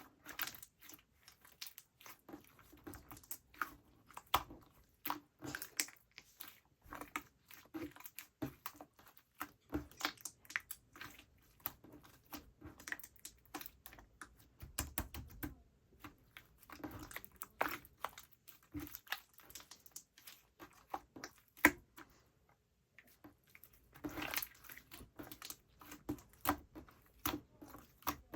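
Slime being squeezed and poked by hand, giving irregular small sticky clicks, pops and crackles. There is a brief pause a little before the last quarter.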